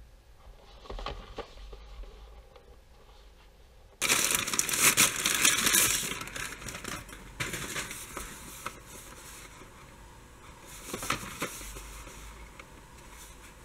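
Hands handling a cardboard product box, then, about four seconds in, crumpled white packing paper crinkling loudly for about two seconds as it is pulled out of the box. After that, quieter rustling and light taps from handling the box, with another short burst of crinkling near the end.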